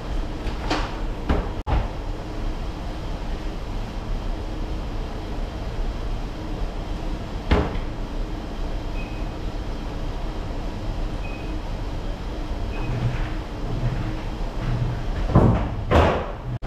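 Doors or lids knocking and clicking shut, loudest twice near the end, with three short high electronic beeps in the middle, over a steady low machinery hum.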